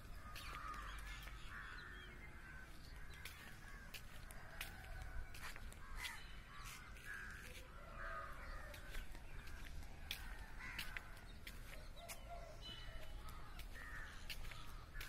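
Crows cawing repeatedly, short calls one after another, over faint outdoor background, with scattered sharp clicks.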